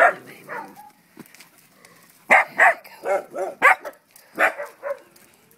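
A dog barking: one bark at the start, then a quick run of short barks from about two seconds in.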